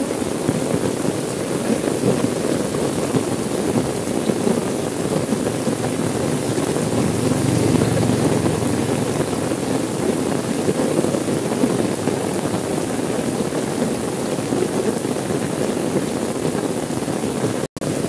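Steady rain falling on a car window, heard from inside the car, with a momentary dropout in the sound near the end.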